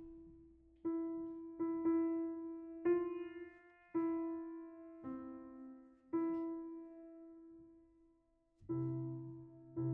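Steinway & Sons Model S-155 baby grand piano played slowly: single notes, mostly around the same pitch, struck about once a second and left to ring and die away. A fuller chord with bass notes comes in near the end.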